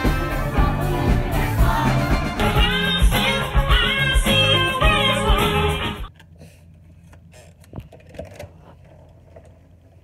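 Music from a band with a singer, cutting off suddenly about six seconds in. After that only faint room noise with a few soft clicks.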